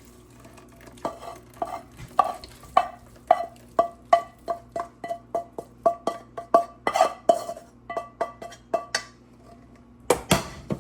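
A utensil stirring and knocking against a metal cooking pan of browned ground venison, striking about twice a second with a short ring on each hit. A louder clatter comes near the end.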